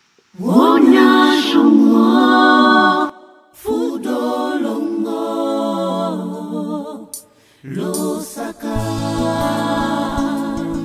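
Gospel song opening with unaccompanied voices singing in harmony, in three phrases with short breaths between them; a low held note joins underneath near the end.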